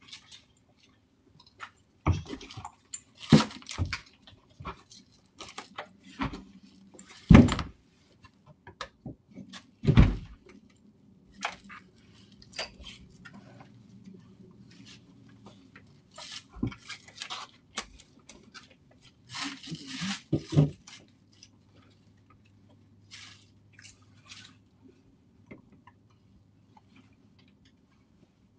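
A front door being forced by intruders: irregular heavy bangs and thuds against the door, with lighter clicks and rattles of the handle and lock in between. The loudest blows land about two, three and a half, seven and a half and ten seconds in, and again about twenty seconds in.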